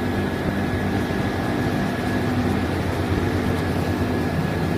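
Steady, continuous drone of rice-mill machinery running, with a low hum and a faint steady high whine.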